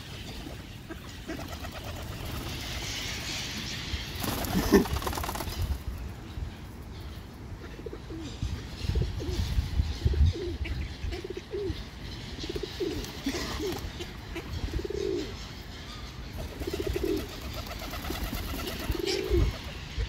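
Feral pigeons cooing: short, low coos repeated every second or so from about eight seconds in, over a low rumble on the microphone. A brief louder burst comes about five seconds in.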